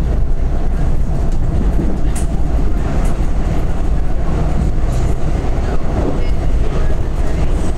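Washington Metro train running along the track, heard from inside the railcar: a steady low rumble with a faint steady tone and a few brief clicks from the wheels.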